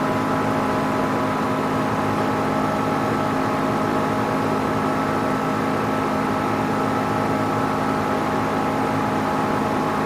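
Steady mechanical hum of a running machine, with several held tones over an even noise and no change in pitch or level.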